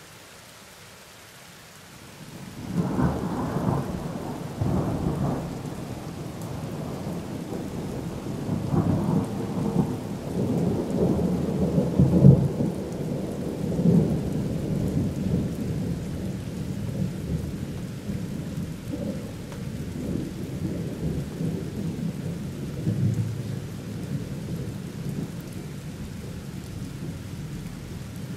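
A long roll of thunder breaks about two and a half seconds in over steady rain, rumbling in several waves with its loudest peak near the middle, then slowly dying away to a low grumble.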